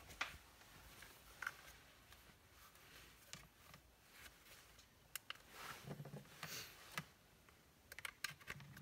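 Near-silent room with scattered sharp clicks and brief rustles: a plastic power bank and its USB cable being handled and connected to a mosquito trap.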